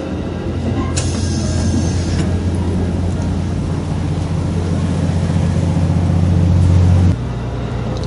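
Running noise inside a moving KiHa 183-series diesel train: a deep, steady engine drone under the floor that grows slowly louder, then drops off abruptly about seven seconds in. A brief rush of higher noise comes about a second in.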